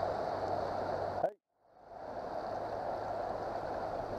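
Shallow, rocky river current running steadily. It cuts out for about half a second a little over a second in, then comes back.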